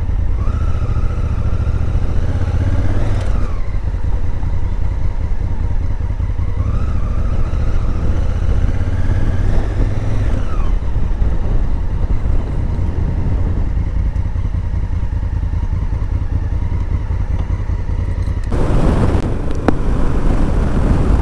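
Honda Africa Twin CRF1000L's parallel-twin engine under way, its note rising as the bike accelerates and dropping at each gear change. Near the end a broad rush of wind noise comes in as the bike reaches highway speed.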